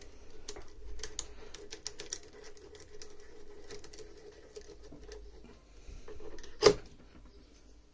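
Small steel tooling being handled and slid into the tailstock of a small cast prayer-bead lathe: a string of light metallic clicks and taps, with one louder clack near the end, over a faint steady hum.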